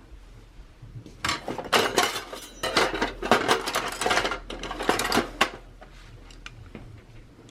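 Loose metal tools clinking and clattering against one another as they are handled and shifted, a quick run of sharp clinks lasting about four seconds.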